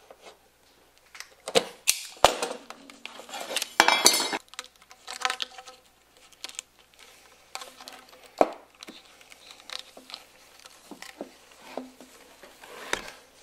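Hand tools and metal parts being handled on a wooden workbench: a series of sharp clicks and metal clinks, the loudest cluster about four seconds in, then quieter scattered clicks and rubbing as a cut piece of heat-shrink tubing is handled.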